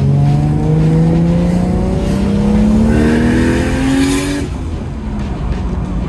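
Toyota Chaser's turbocharged 1JZ-GTE straight-six accelerating hard, its note rising steadily in pitch, with a hiss building over it in the last second or so. The engine note drops away about four and a half seconds in as the throttle comes off, then settles into a lower, steady hum.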